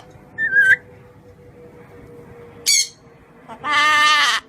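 Pet parrot calling three times: a short whistle about half a second in, a sharp high squawk sweeping down near three seconds, and a longer, fuller squawk near the end.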